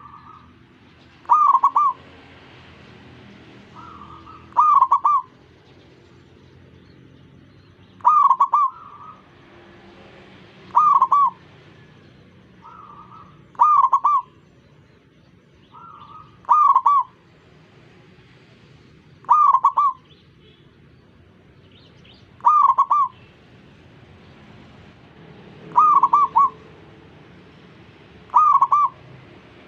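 Zebra doves (perkutut) cooing. One bird gives a loud, short coo phrase about every three seconds, about ten in all, and a fainter second dove answers with softer coos just before several of them.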